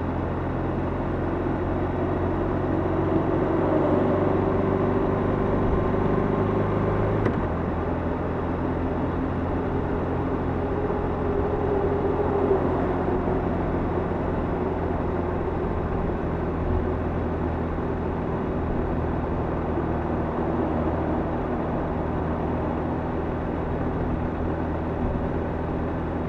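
Motorcycle engine running steadily at cruising speed, with wind and tyre noise echoing in a long road tunnel. The engine note changes abruptly about seven seconds in, and an oncoming car passes around the middle.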